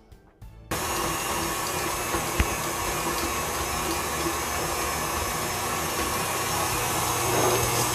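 KitchenAid tilt-head stand mixer switching on under a second in and running steadily, its wire whip beating chilled, solidified body butter in a stainless steel bowl. A few faint clicks come just before the motor starts.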